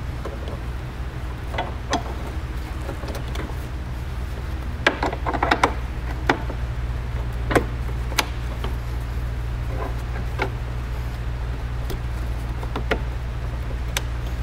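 Loader hydraulic hose quick couplers being pushed together by hand: a scattered series of sharp clicks and knocks, most of them a few seconds in. A steady low hum sits underneath.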